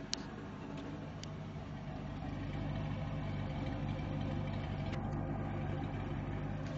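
1976 Dodge three-quarter-ton truck's engine idling steadily, getting a little louder about two seconds in, with a couple of faint clicks.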